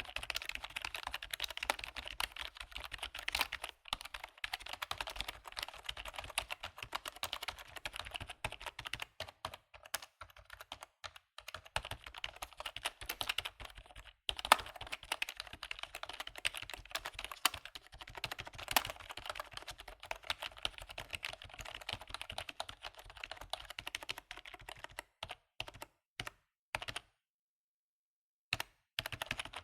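Typing on a computer keyboard: a fast, continuous run of key clicks, thinning out a third of the way in and stopping for about a second and a half near the end before resuming.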